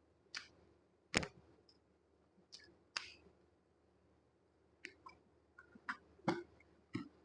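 A scattered series of short, sharp clicks and taps, about eight in all, the loudest a little over a second in.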